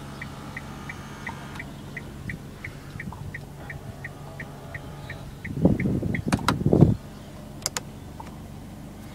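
A 2011 Kia Sportage idling, heard from inside the cabin, with a turn-signal indicator ticking about three times a second. The ticking stops about six seconds in, where a louder mechanical rattle and a few sharp clicks from the controls take over.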